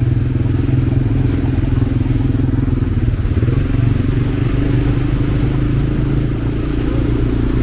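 Automatic ATV's engine running steadily while riding, heard from on board: a low, even drone whose pitch wavers a little.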